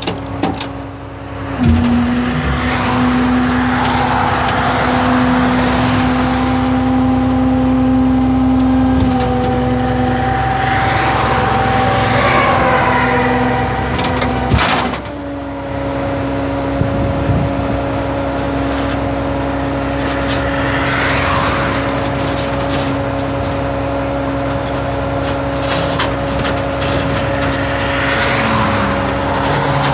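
Tow truck engine running at a steady fast idle, its pitch dropping slightly about two seconds in and rising again about halfway through. Highway traffic swooshes past four times.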